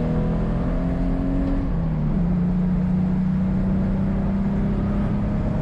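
BMW E24's straight-six engine pulling under acceleration, heard from inside the cabin. Its pitch climbs, drops about two seconds in at an upshift, then holds steady.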